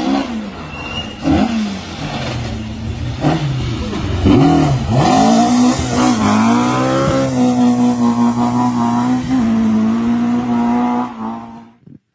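Ford Escort Mk2 rally car's engine revving hard at speed, its note dipping and climbing several times over the first few seconds as the driver lifts and changes gear. It then holds a steady high-revving note before fading out near the end.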